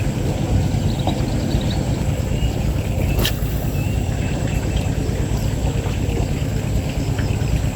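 Steady low rumbling noise, with one sharp click about three seconds in.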